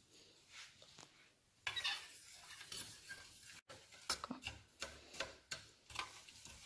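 Spoon stirring in a stainless steel pot of water, scraping and clinking irregularly against the pot as sodium acetate is dissolved in it.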